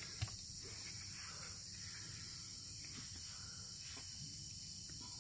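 Crickets and other insects chirping steadily in the grass as a high, even background, with a faint click about a quarter second in.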